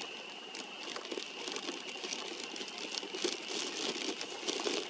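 Close rustling and crinkling handling noise, a rapid, irregular run of small clicks and crackles, over a steady faint high-pitched tone.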